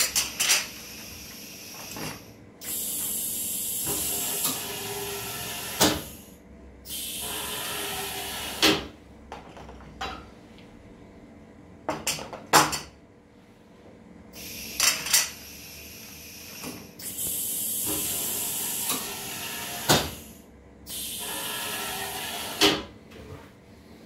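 Homemade pneumatic can filler running through two fill cycles: sharp clacks as the air cylinders and valves move, each followed by a hissing burst lasting a few seconds, the first of each pair longer. Glass tumblers clink as they are handled on the line.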